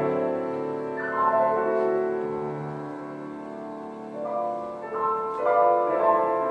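Viola and grand piano playing a slow classical chamber passage, the viola sustaining long notes while the piano adds new chords about a second in and again near the end.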